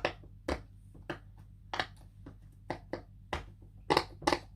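Silicone pop-it fidget toy bubbles being pressed one after another, each giving a short sharp pop, about two a second at an uneven pace.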